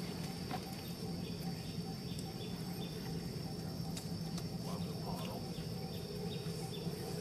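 Steady high-pitched insect drone with runs of short repeated chirps, about two or three a second, over a low steady hum.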